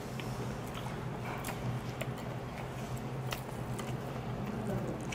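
A person chewing food close to a clip-on microphone, with scattered light clicks of metal chopsticks against plates, over a steady low hum.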